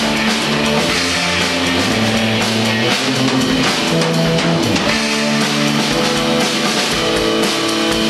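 Rock band playing live and loud: electric guitars over a drum kit with cymbals, the song running on without a break.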